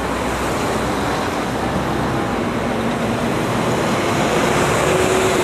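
Street traffic with a double-decker city bus passing close by. Its engine hum rises slightly in pitch and loudness near the end.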